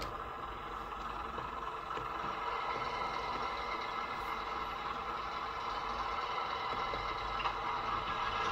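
Sound-fitted Bachmann Class 117 DMU model playing its recorded diesel engine idle through the model's small onboard speaker, a steady running sound without change.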